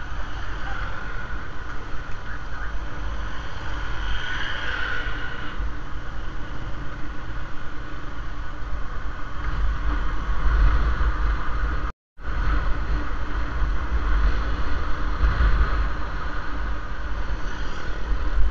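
Motorcycle riding in traffic, heard from a camera mounted on the bike: steady engine and road noise under heavy wind rumble on the microphone. About twelve seconds in, the sound drops out completely for a split second.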